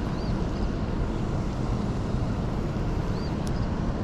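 Steady low rumble of water rushing from the dam into the tailwater. Two short high bird chirps come early and about three seconds in, and a single sharp click comes near the end.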